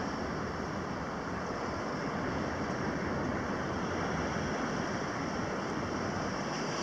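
Steady sea surf washing against a rocky breakwater, with wind. It is an even, unbroken rush with no single wave crash standing out.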